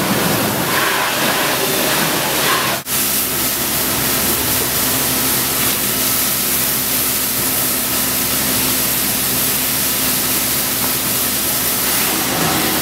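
Steady rushing hiss of a fire hose spraying water onto a burned, smoking pickup truck. After a brief dropout about three seconds in, a steady engine hum runs underneath the spray.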